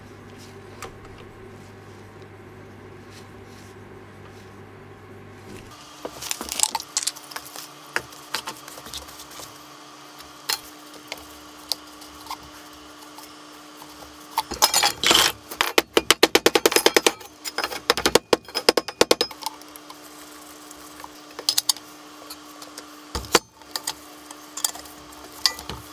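Metal parts clinking and rattling as they are handled and turned on an electric motor's shaft, with a fast run of loud clicks in the middle. A low steady hum fills the first six seconds, and a fainter steady tone runs under the clinks after that.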